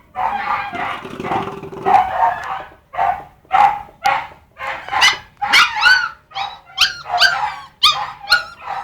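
Puppies yelping and whining in short, high-pitched calls that come about twice a second, more crowded together in the first few seconds.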